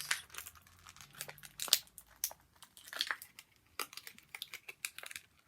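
Plastic toy packaging being handled and worked at by hand, with irregular crinkles and sharp clicks; the loudest crackle comes a little under two seconds in.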